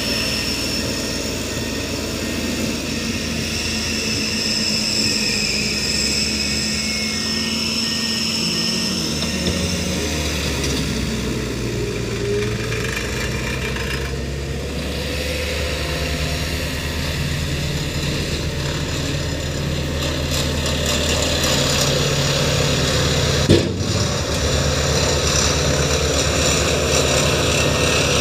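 Diesel engine of a Tata tipper truck running steadily while its raised dump body tips out a load of fly ash, with a single sharp knock late on.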